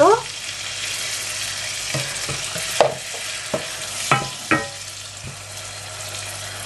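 Shrimp, onion and garlic sizzling in hot oil in a saucepan, a loud hiss as the splash of water meets the oil, easing after about three seconds. A wooden spoon stirs the pan and knocks against the pot three or four times in the second half.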